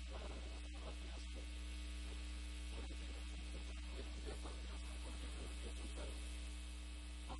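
Steady low electrical mains hum with a faint hiss, constant throughout.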